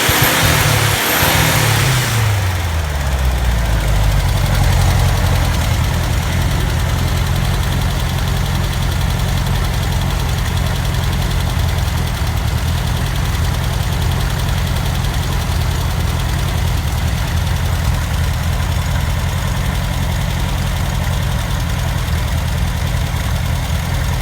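Freshly rebuilt engine on its first test run: the revs fall over the first few seconds, and it settles into a steady, even idle.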